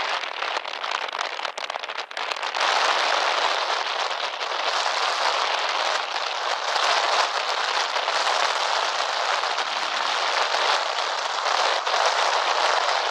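Strong wind buffeting the microphone: a rough, even rushing noise with no engine tone in it, getting louder about two and a half seconds in and staying strong.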